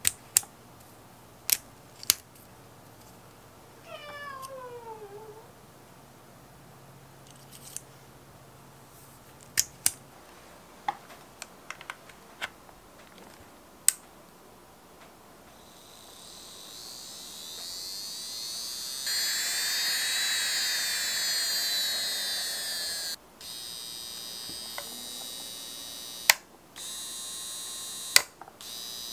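Sharp handling clicks from a melodysusie portable electric nail drill as its handpiece collar is twisted and the handpiece is plugged into the control unit, and one short falling meow about four seconds in. About sixteen seconds in, the drill's handpiece motor spins up to a high whine, runs steadily for several seconds, stops, and then runs again in shorter stretches.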